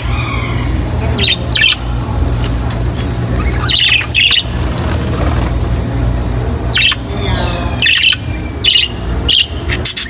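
A flock of budgerigars chattering and squawking: many short, sharp calls and warbling notes repeated throughout, over a steady low hum.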